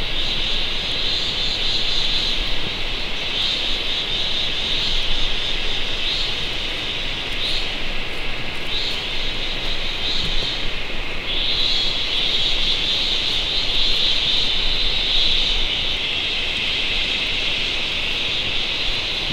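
Forest insect chorus: a steady high-pitched buzz that swells and dips several times, over a continuous low rush.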